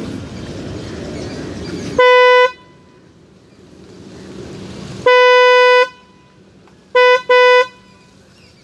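Roots Windtone 90 high-tone electric trumpet car horn sounding on its own: a half-second blast, a longer blast of about three quarters of a second, then two quick short blasts, each a single steady note.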